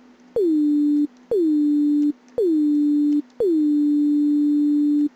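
Synthesized notes from Ableton Live's Operator synth. Each opens with a click and a quick downward pitch glide, set by a pitch envelope at 80, then settles on a steady tone. It is an early, not yet convincing step toward a motorcycle throttle-twist sound. Four notes about a second apart, the last held longest.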